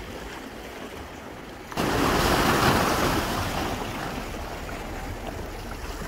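Black Sea surf washing against a concrete breakwater. About two seconds in, a louder rush of water comes in suddenly and slowly dies away.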